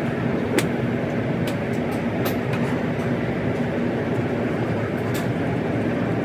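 Steady low rumbling background noise, broken a few times by sharp clicks of golf clubs striking balls, the loudest about half a second in.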